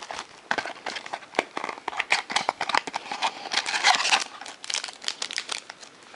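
Crinkling and tearing of a trading-card pack's plastic wrapping as it is pulled open by hand, in irregular crackly bursts, loudest near the middle.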